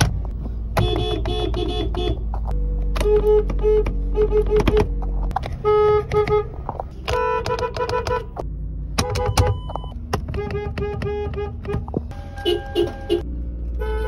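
Car horns honked in quick series of short toots, one car after another, each horn with its own pitch. An idling engine hums underneath.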